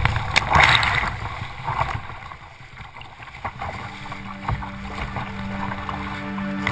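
Rough sea water splashing and washing over a sea kayak's bow deck, close to a deck-mounted camera, with the loudest surges in the first second and quieter, scattered splashes after.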